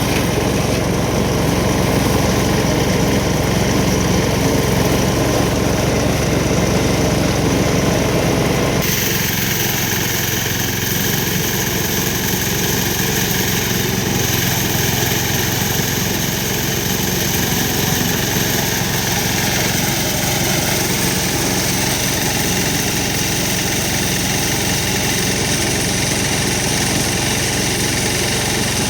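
An engine running steadily, with an abrupt change in its tone about nine seconds in.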